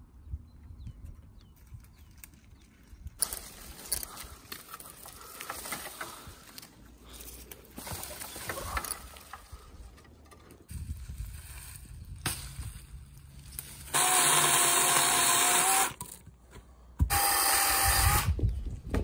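A small motorised tool runs in two bursts of about two seconds each, near the end, with a steady pitched whine over a hiss. Before the bursts come scattered quieter knocks and rustling.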